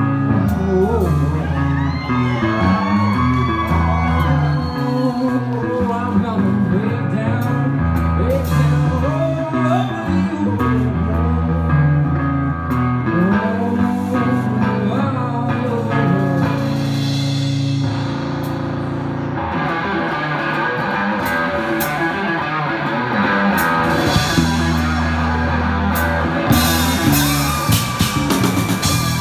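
Live rock band playing: electric guitars and drum kit, with a singer. The playing grows fuller and denser about two-thirds of the way through.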